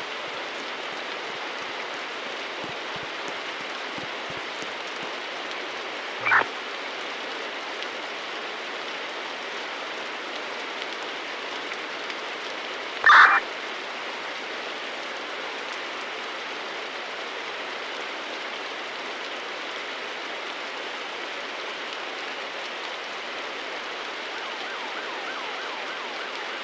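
Steady hiss of rain, with two short chirps of a fire engine's siren, a faint one about six seconds in and a louder one about thirteen seconds in.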